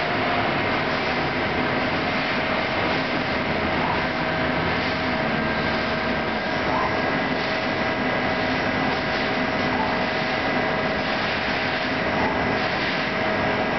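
CNC lathe turning a metal nut blank under flood coolant: the spindle and coolant spray run with a steady hiss and a faint steady whine.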